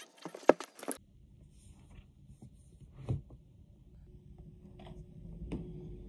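A sharp click about half a second in and a softer one just after, from a ballpoint pen being handled over an open journal. Then quiet room tone with a faint low hum and a few soft taps.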